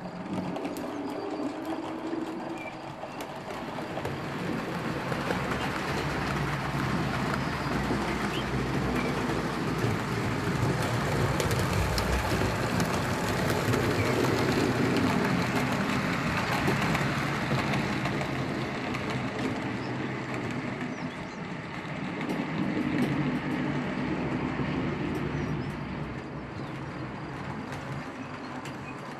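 HO-scale narrow-gauge BEMO model freight train running along the track, a steady rumble and rattle of its wheels and motor that grows louder as it passes close and fades near the end.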